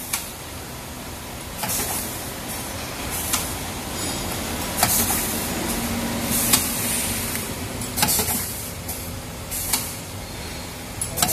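Automatic three-side-seal sachet filling and packing machine running, with a sharp click and a short burst of air hiss about every second and a half as it seals and cuts each sachet, over a steady machine hum.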